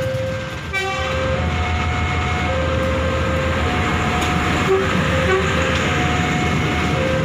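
Level-crossing warning alarm sounding two alternating tones, about one change a second, over the low rumble of a Prameks commuter train passing close by. A brief horn toot sounds about a second in.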